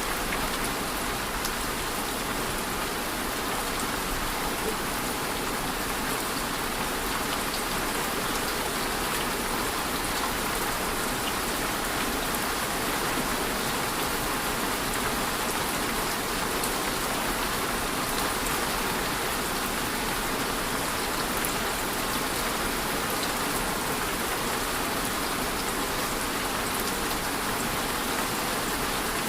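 Steady rain falling, an even hiss with many fine drop ticks, unchanging throughout.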